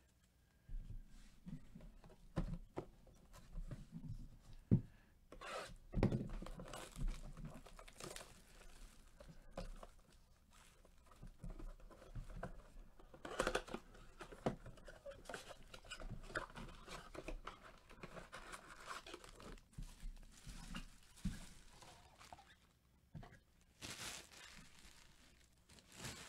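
Cardboard blaster boxes of trading cards being torn open and their foil-wrapped packs pulled out: irregular tearing of cardboard and crinkling of foil wrappers, with a few sharp knocks.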